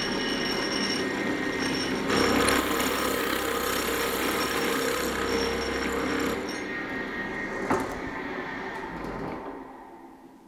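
Drill press running as an 8.5 mm twist drill bores a tapping hole in the shaper's cast-iron inspection cover. The sound is louder while the bit is cutting, from about two to six seconds in, then eases off with a single click and fades away near the end.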